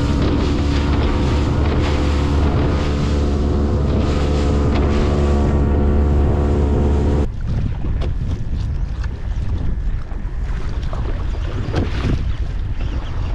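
Boat engine running at a steady speed, cutting off suddenly about seven seconds in. Wind and water noise follow, with scattered short knocks.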